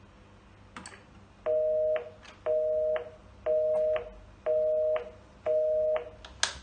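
Telephone busy signal: five half-second beeps of a steady two-note tone, half a second apart, the tone that marks a busy line or an ended call. A click comes before the beeps and another as they stop near the end.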